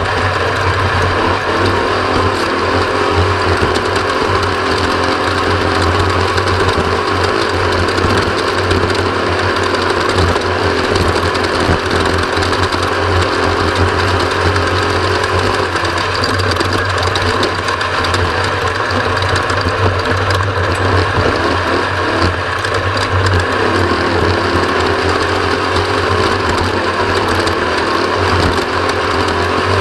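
Off-road race vehicle's engine running steadily at speed, with constant rattling and knocking over rough ground.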